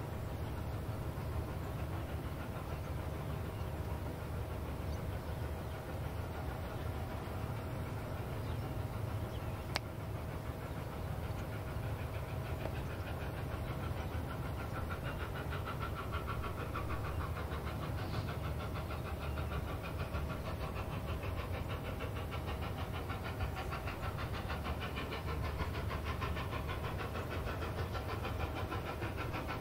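2-10-0 steam locomotive Strasburg Railroad No. 90 working uphill under load with a freight train, its exhaust chuffing steadily over a low rumble. The chuffing becomes more distinct and rhythmic from about halfway through as the engine draws nearer.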